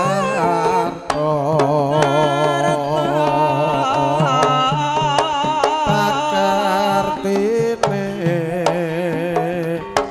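Javanese gamelan ensemble playing a tayub gending, with a singer's voice wavering over the steady metallic tones and sharp kendang drum strokes.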